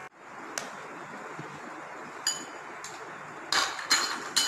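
A utensil clinking against glassware: a few scattered clinks, then a louder cluster of three or four near the end, over a steady background hiss.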